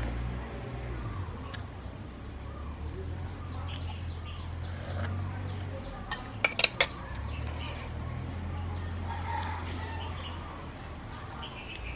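Metal spoon clinking against a ceramic soup bowl: a quick run of four sharp clinks about halfway through. Bird calls and a steady low hum run underneath.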